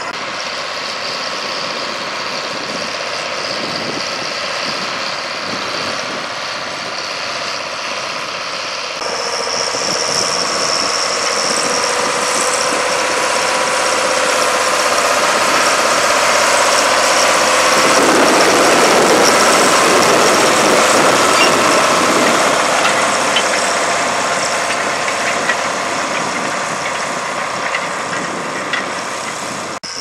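International Harvester 1055 XL tractor's six-cylinder diesel engine running steadily as it pulls a field roller, growing louder about halfway through as the tractor passes close, then easing off.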